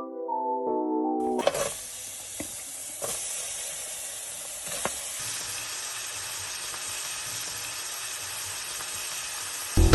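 Food sizzling in hot oil in a frying pan, a steady crackling hiss with a few sharp clicks. Soft piano music plays for about the first second before the sizzle cuts in.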